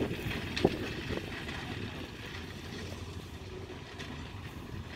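Ty42 steam locomotive rolling slowly away along the track, a low rumble that fades as it goes, with one sharp clank about half a second in.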